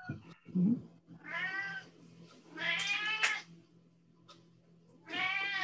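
A domestic cat meowing three times, each call drawn out for under a second.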